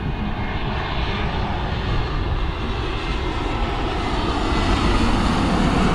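Airbus A321neo jet airliner on final approach with landing gear down, its twin turbofan engines producing a steady jet rumble. The rumble grows gradually louder as the plane passes close overhead.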